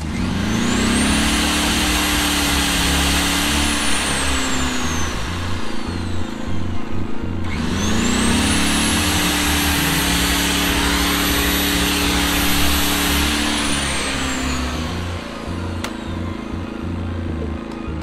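A big corded drill spun up twice, about seven and a half seconds apart. Each time its motor whine climbs, holds for a few seconds, then falls away as the drill coasts to a stop. Under it the Pulsar G2319N 2300 W inverter generator's engine runs steadily, powering the drill.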